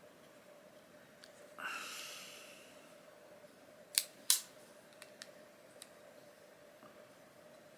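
Leatherman Free P4 multi-tool being handled: a short scraping rasp that fades, then two sharp metallic clicks a third of a second apart and a few lighter ticks, like its magnetic tools and knife opening and snapping shut.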